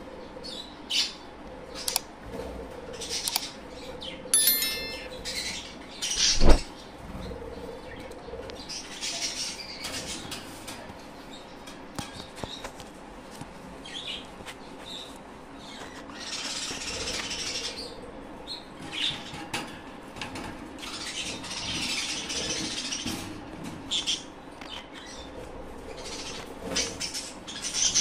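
Budgerigars moving about at the nest: scattered short chirps and rustling, with two longer rustling stretches in the second half. A sharp knock about six and a half seconds in is the loudest sound.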